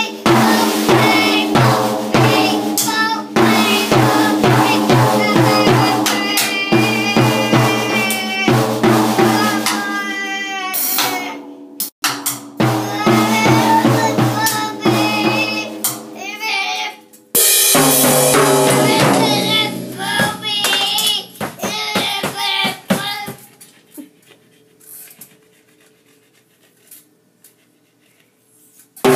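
A small child banging on a drum kit, hitting drums and cymbals at an uneven pace while singing along. About three-quarters of the way through the playing stops, leaving only a few scattered light taps.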